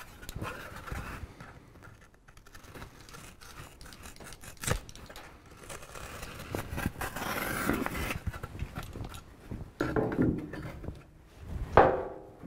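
Utility knife scoring and slicing through a piece of foam GoBoard tile backer board, a series of scraping cuts with a sharp click about five seconds in. Near the end, louder rubbing knocks as the cut piece is handled and pushed against the tub.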